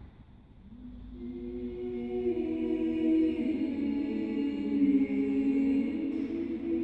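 Two women's voices singing long, held, wordless notes together in improvised harmony, swelling in about a second in, inside a small stone church.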